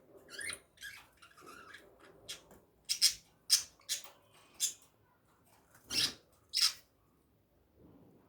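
Birds making a series of short, harsh, high-pitched chirps, about a dozen of them, louder from about three seconds in.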